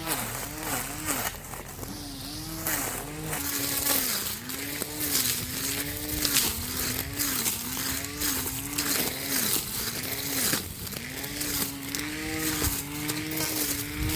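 12 V Mailtank SH226A battery grass cutter's electric motor whining as it cuts grass, its pitch sagging and recovering again and again as the head bites into the grass, with many sharp ticks from the cutting.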